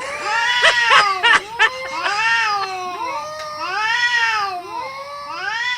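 Cats caterwauling in a fight: several overlapping drawn-out wails that rise and fall in pitch, with a few short sharp sounds in the first two seconds.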